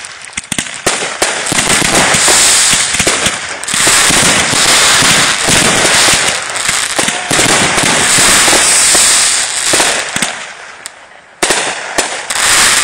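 Consumer 1.4G fireworks firing in a rapid barrage of launches and aerial bursts. The barrage thins out about ten seconds in, and a couple more loud bursts follow near the end.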